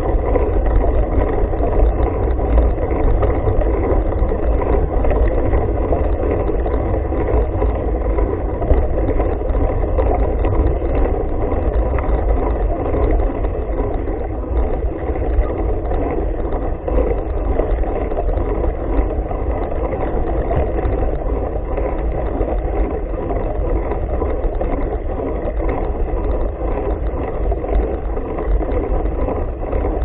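Steady rumble of wind and rolling noise on a camera moving along on a mountain bike ride, with no sudden events.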